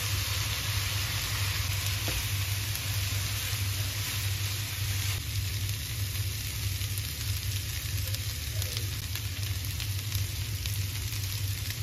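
Fried rice sizzling steadily in a frying pan over a portable butane gas stove, an even hiss throughout.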